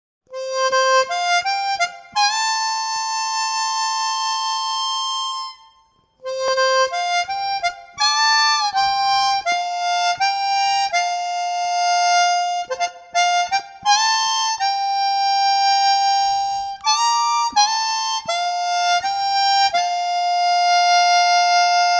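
Background music: a single melody line of long held notes with a reedy, overtone-rich sound, breaking off briefly about six seconds in.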